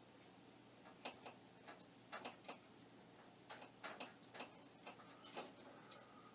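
Faint, irregular small clicks and taps of a connector and cable being wiggled on a Commodore PET's video hookup, over a low steady hum. A faint high tone sounds for about a second near the end.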